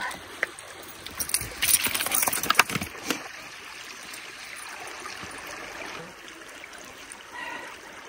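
Shallow creek trickling steadily over stones. About a second in, a couple of seconds of sharp clicks and rustling break over it.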